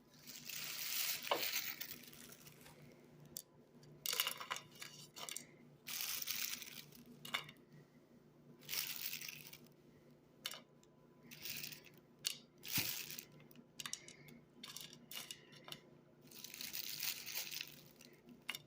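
Dry, crinkly rustling and small clicks as toasted chapulines (grasshoppers) are handled and put into a quesadilla, coming in a series of short bursts of a second or so each.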